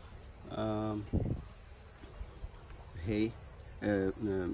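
A cricket trilling steadily at one high pitch, with a man's voice making three short wordless sounds: about half a second in, and twice near the end.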